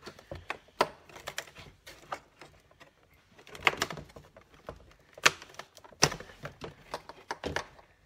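Irregular plastic clicks and snaps from electrical connectors being unclipped behind a loosened door trim panel, the trim rattling against the door. The sharpest snap comes about five seconds in.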